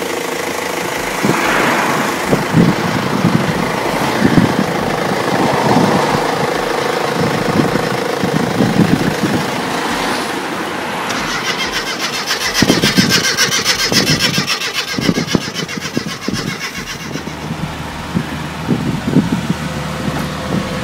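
A Classic Mini's small four-cylinder petrol engine starting and running, with irregular knocks over a steady drone.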